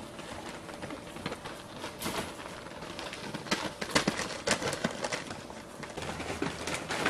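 Chihuahua puppies playing and scuffling in a wire exercise pen: a scatter of light clicks and knocks, the sharpest about four seconds in.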